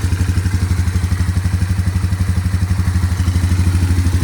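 1995 Polaris 425 Magnum ATV's four-stroke engine idling steadily just after starting, with an even, fast firing pulse.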